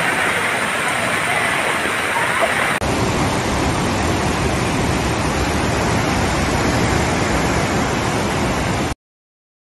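Muddy floodwater rushing, a steady noise; about three seconds in it changes abruptly to the fuller, deeper rushing of a river in spate, which cuts off suddenly near the end.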